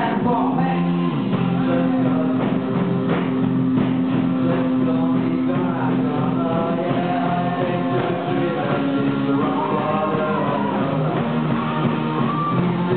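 Rock band playing live: a male singer over electric guitars, bass guitar and a drum kit, with long held sung notes.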